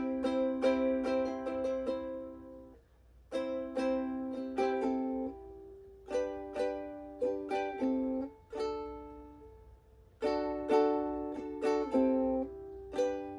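Ukulele chord riffs: chords strummed and picked in short phrases, each ringing and dying away, with brief pauses between the phrases.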